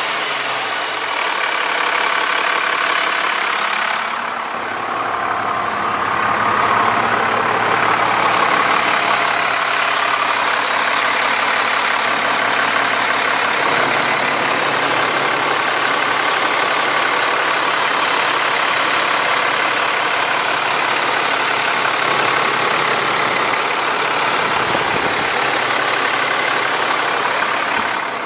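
Diesel engine of a 2002 Sterling LT8500 garbage truck idling steadily, heard close up in the open engine compartment.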